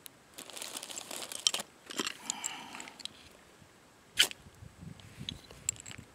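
Ferrocerium rod scraped with a steel striker to throw sparks into a small alcohol stove and light it. There are a few rasping scrapes in the first three seconds, then one short, sharp strike, the loudest, about four seconds in.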